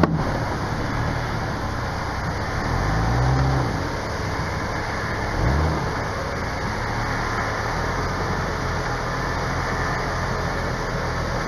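Off-road vehicle engine running, revved up and back down three times: at the start, about three seconds in, and about five and a half seconds in.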